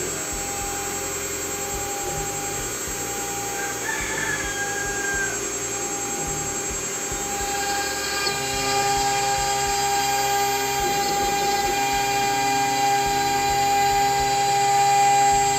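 CNC router spindle whining steadily at 24,000 RPM while a 2 mm tapered ball-nose bit carves oak at a slow starting feed rate. The sound grows a little louder about eight seconds in.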